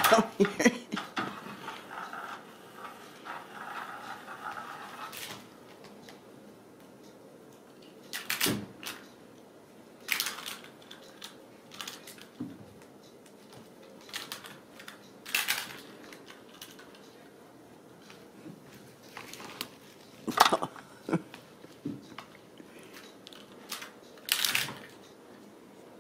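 Ragdoll kittens at play: scattered short scratchy rustles and light knocks from claws and paws on a rope-wrapped scratching post and rug, with a quick cluster of clicks at the start.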